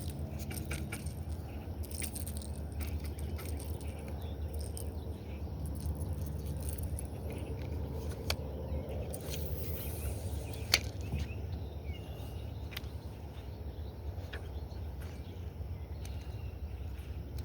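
Casting and working a topwater popper from a small boat: scattered small clicks of rod and reel handling, a swish of a cast about nine and a half seconds in, then one sharp click a second later, over a steady low hum.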